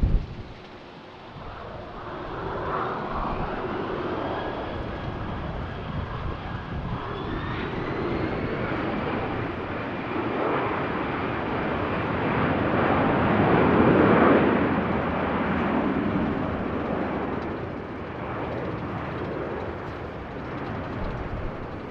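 Airbus A340-300's four CFM56 turbofans spooling up for take-off, a whine rising over a few seconds and then holding steady as the jet rolls past, loudest about two-thirds of the way through. A brief knock right at the start.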